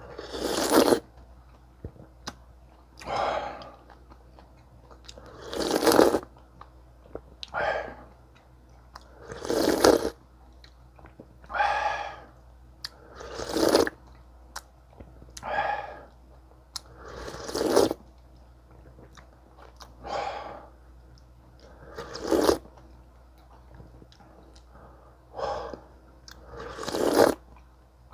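Close-miked eating sounds of a meal of sundae gukbap with kimchi and kkakdugi: a string of loud bites and chewing, one every one to two seconds.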